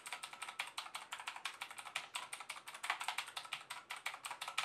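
Fast typing on the Zebronics MAX mechanical keyboard's Outemu blue clicky switches: a rapid, unbroken run of sharp clicks, many keystrokes a second.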